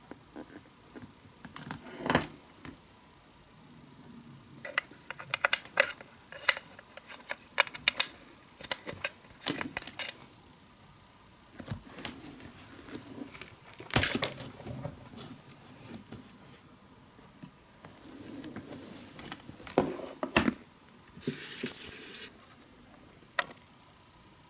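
Hands handling a KATO Power Pack Hyper DX controller and its cords: a string of plastic clicks, knocks and rustles as the adapter plug and connectors are fitted, with a louder knock about fourteen seconds in and a short burst of rustling near the end.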